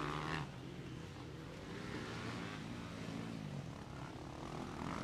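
Motocross bikes' engines running out on the track, heard as a drone of several engines whose pitch wavers as the riders work the throttle. A louder, higher layer of sound stops about half a second in.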